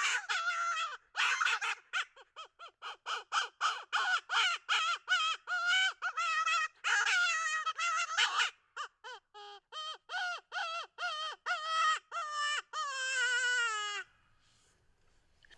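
Predator call sounding a long series of pitched, wavering distress cries, some falling in pitch, that break off abruptly near the end. It is a calling sequence meant to draw a coyote back in.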